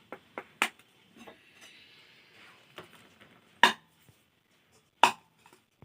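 Metal kitchen utensils clinking against cookware: a few sharp separate clinks, the loudest two about a second and a half apart in the second half.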